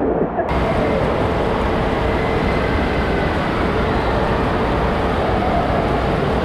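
Surf churning in a wave pool for the first half second, then a steady rush of water running down a water slide and splashing into the pool at its foot.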